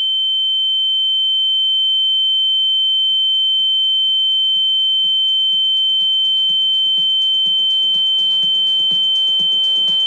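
A loud, steady high-pitched electronic tone, with music fading in beneath it from about two seconds in, its beat growing busier toward the end.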